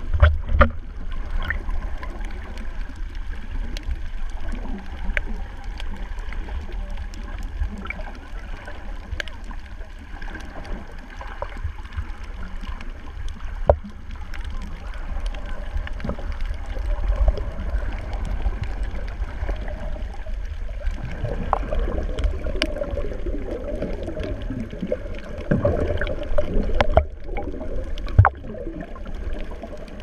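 Underwater sound of a shallow coral reef: a steady low water rumble with many scattered sharp clicks. Near the end comes a few seconds of louder rushing water noise.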